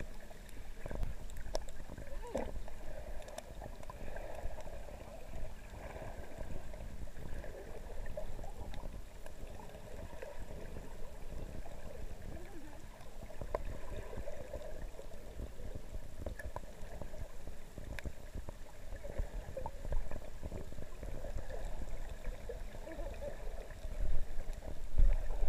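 Underwater sound from a camera held just below the surface of shallow water: a steady muffled wash of moving water with scattered sharp clicks. There are louder low thumps near the end.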